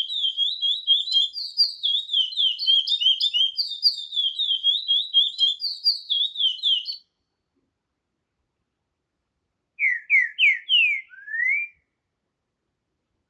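Birdsong: a fast, continuous run of short, high, down-slurred chirps that cuts off abruptly about seven seconds in. After a few seconds of silence comes a brief phrase of about five lower, slurred whistled notes.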